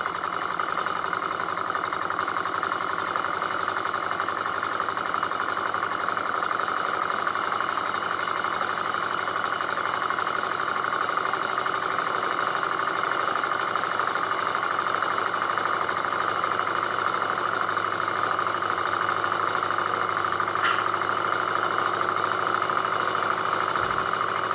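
Small Aibecy glass-cylinder hot-air Stirling engine running fast and steady, its flywheel and crank spinning at full speed on the heat of an alcohol-lamp flame.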